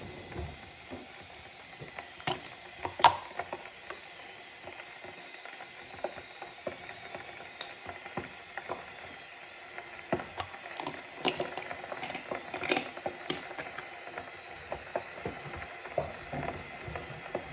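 Kitchen handling sounds of a drink being made: a metal spoon scraping and clinking in a glass jar and against a ceramic mug, a jar lid set down, as scattered clicks, the loudest about three seconds in and a run of them in the second half. A steady hiss runs underneath.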